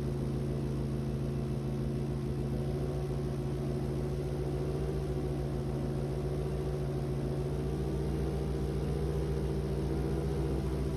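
An engine idling steadily: a constant low hum with an unchanging pitch throughout.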